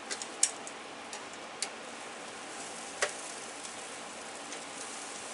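Metal tongs clicking against the grill grate a handful of times as steaks are lifted off, the sharpest click about half a second in, over a steady faint hiss from the grill.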